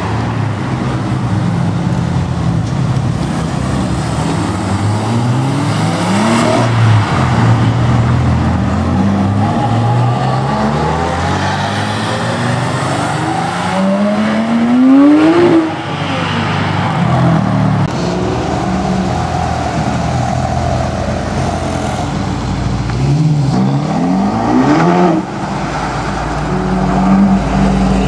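Supercar engines accelerating hard through the gears, the engine note climbing and then dropping sharply at each upshift several times, loudest about halfway through, over road and traffic noise.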